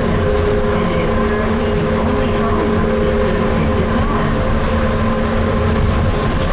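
Tateyama Tunnel Trolleybus, a rubber-tyred electric bus with a VVVF inverter driving an AC motor, running at steady speed, heard from inside the bus. A low rumble comes with a steady electric whine that holds one pitch throughout.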